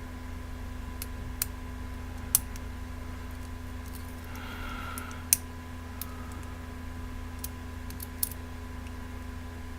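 Lock pick and tension wrench working the pins of a brass padlock's five-pin core with spool pins, giving small sharp clicks every second or so, two of them louder. A steady low hum runs underneath.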